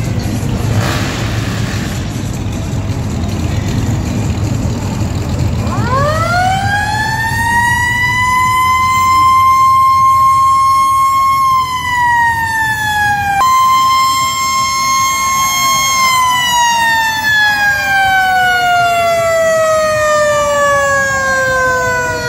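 A siren winds up about six seconds in to a steady high wail. It sags and comes back up, then winds down slowly over the last several seconds, over a low rumble of engines.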